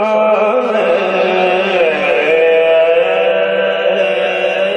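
A man singing a devotional Urdu-Punjabi verse into a microphone over a PA, drawing out long held notes that bend slowly in pitch, with a steady low tone sustained underneath.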